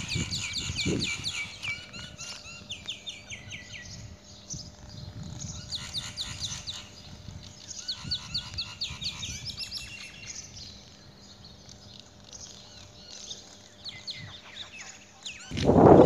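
Birds chirping in quick repeated series of short notes, several calls overlapping. Near the end a louder low rushing noise comes in over them.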